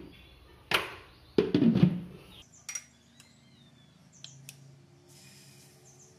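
Pan and kitchen utensils clattering: a sharp knock just under a second in, a louder clatter a little later, then a few faint clicks.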